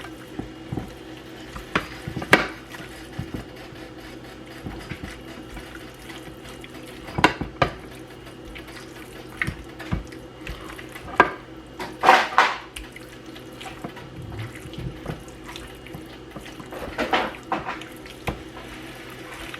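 Kitchen tap running steadily into a sink, with a few sharp clinks and knocks of dishes or utensils scattered through it.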